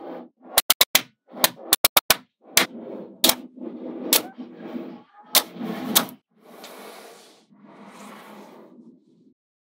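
Small magnetic balls snapping together in quick runs of sharp clicks as bars of them are pushed into place, with rattling between the clicks. The last few seconds hold only a softer sliding rustle.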